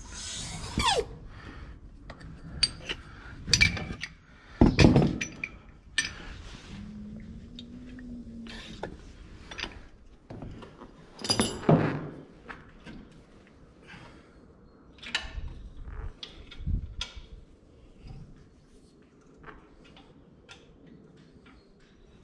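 Irregular metal clunks, thunks and clinks of hand work on a tractor, the loudest knocks about four, five and twelve seconds in, with a short hum near the middle.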